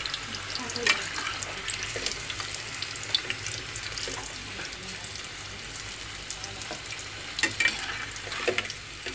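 Pastry rolls deep-frying in hot oil in a kadhai: a steady crackling sizzle, with a few sharp clicks and knocks as a slotted metal spoon lifts the golden rolls out of the oil.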